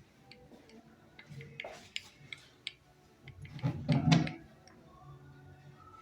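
Irregular light mechanical clicks and ticks from an antique Singer sewing machine being handled, with a louder clattering rattle about three and a half to four seconds in.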